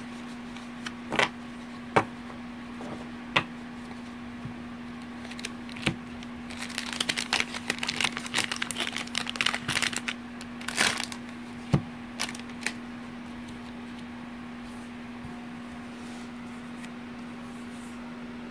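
Trading cards and their plastic pack wrappers being handled: a few sharp taps and clicks of cards, and a run of crinkling wrapper plastic around the middle.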